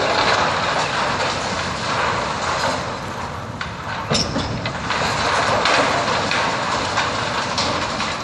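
Brick and masonry rubble crashing and clattering down from a wrecking-ball strike on a brick building, with a sharp knock about four seconds in.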